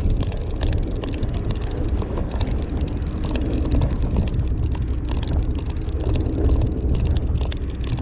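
Steady low rumble of a fishing charter boat's running engine, with small clicks as the rod, reel and hook are handled.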